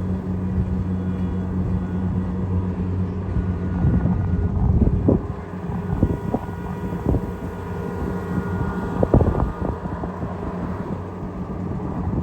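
Kubota DC688Q combine harvester's diesel engine running steadily, with several knocks and clunks around four to five seconds in and again near nine seconds as the machine goes down into a flooded ditch.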